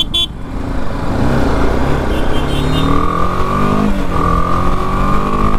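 BMW G 310 GS single-cylinder engine pulling away and accelerating, its pitch rising over the second half. A steady high-pitched tone sounds over it from about halfway, with a brief break.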